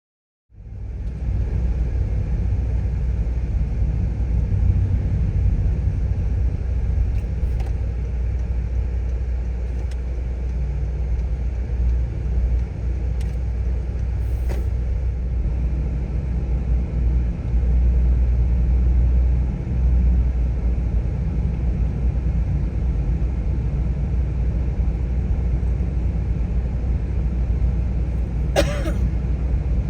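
Steady low rumble of a car driving on the road, starting abruptly half a second in. A brief wavering sound near the end.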